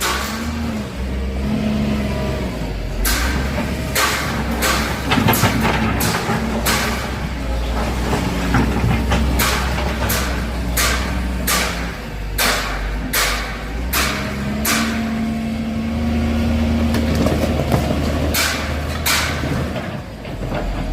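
Excavator's diesel engine running under load, its note rising and falling as it works, with many irregular sharp knocks and crashes of a house being demolished.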